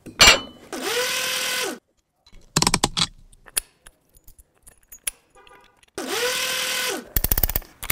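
A cordless power driver runs up to speed, holds briefly and winds down, twice, as it drives M12 set screws through the timber into the clamp. Metal parts click and rattle between the runs, and a quick series of even clicks comes near the end.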